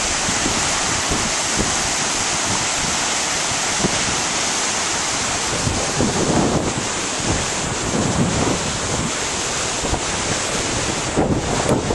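Steady rush of whitewater river rapids, with wind on the microphone. From about halfway through, irregular low bumps and buffets come in, and a few sharp clicks follow near the end.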